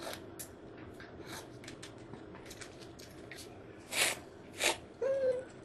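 Close-up eating sounds: faint small clicks, then two short, loud slurps of cup ramen broth about four seconds in, followed by a brief hum.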